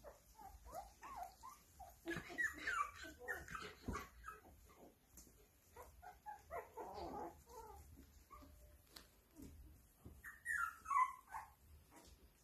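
Newborn puppies whimpering and squeaking in short, high calls, with a louder cluster about two seconds in and another near the end.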